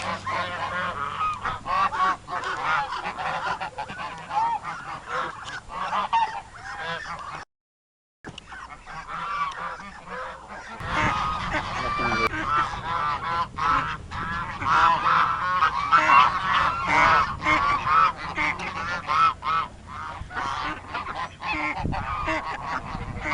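A flock of geese honking, many short calls overlapping without pause, broken by a moment of silence about seven seconds in.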